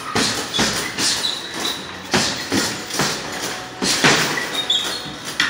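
Boxing gloves striking a hanging heavy punching bag: about ten punches in quick pairs and threes, with short faint squeaks between them.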